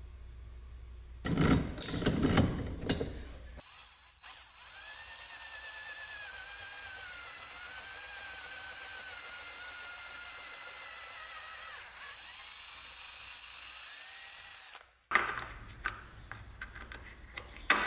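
Power drill running for about eleven seconds with a slightly wavering whine, enlarging the mounting hole in a small metal circuit-breaker tab held in a bench vise; it cuts off suddenly. Brief handling clatter comes before it, and clicks follow it.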